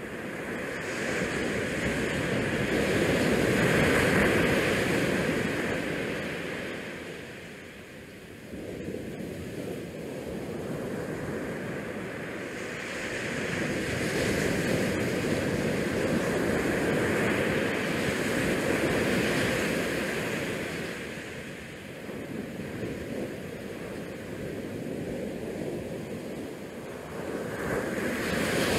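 Wind rushing over the microphone on the open deck of a cruise ship under way at sea, swelling and easing in long gusts every several seconds.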